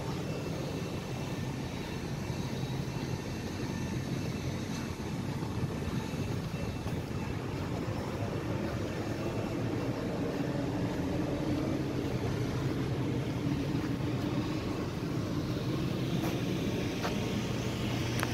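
Steady rushing hum of a cruise ship's deck machinery and ventilation, with a low drone that gets a little louder about halfway through.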